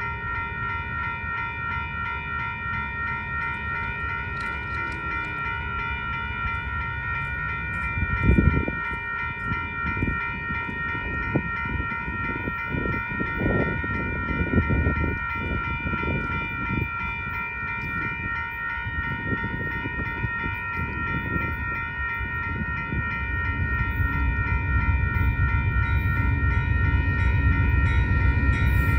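Railroad crossing warning bell starting up suddenly and ringing steadily as the crossing activates. Over the last several seconds the low rumble of an approaching train grows louder beneath it.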